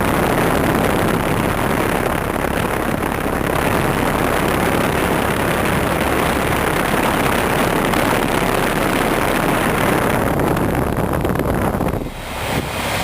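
UPG (Coleman Evcon) heat pump outdoor unit running in heat mode, its fan and compressor making a loud, steady rush of air over a low hum. It gets quieter near the end.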